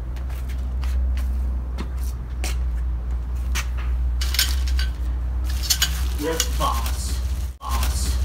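Plastic packaging crinkling and the metal frame tubes of a greenhouse kit clicking as the bagged poles are handled. A steady low rumble runs underneath.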